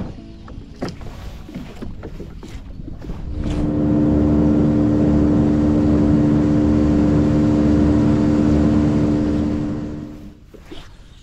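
A boat's outboard motor running steadily at speed, coming in about three seconds in and fading away near the end, with a few lighter knocks before it.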